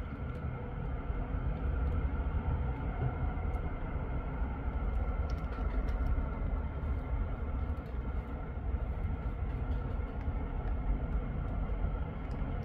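Road traffic: a steady low rumble of engines and tyres from cars, vans and an articulated lorry, with a faint steady whine above it.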